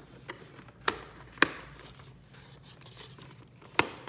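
Cardboard processor box being opened and handled by hand: four sharp clicks and taps of the cardboard lid and flaps over a light rustle, the loudest about a second and a half in and near the end.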